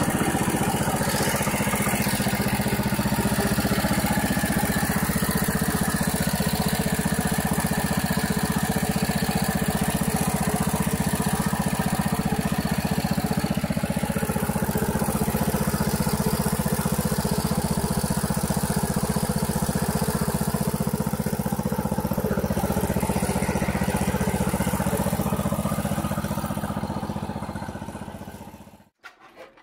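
Wisconsin air-cooled single-cylinder engine of a 1948 Gibson Model D tractor, running steadily. It fades out near the end.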